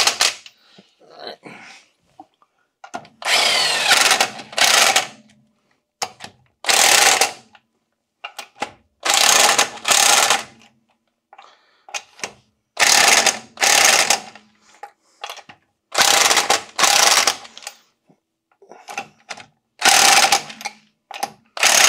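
Cordless impact gun running lug nuts down onto the wheel studs in a series of short bursts, each about a second long. The acorn lug nuts are snugged up lightly so that they center the wheel on the studs, ahead of torquing to spec.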